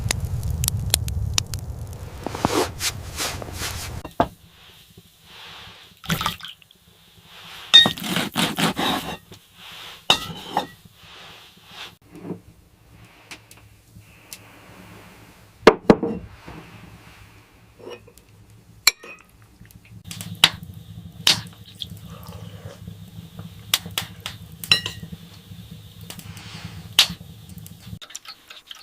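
Scattered light clinks and knocks, some close together, over a low hum that stops about four seconds in and comes back about twenty seconds in.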